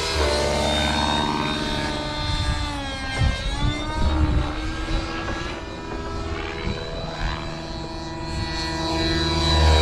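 RC nitro helicopter's O.S. 55 HZ-R glow engine with tuned pipe running at high, governed rpm under rotor noise as it flies aerobatics. Its pitch slides up and down as it moves. It grows fainter as the heli climbs away in the middle and louder again near the end as it comes back.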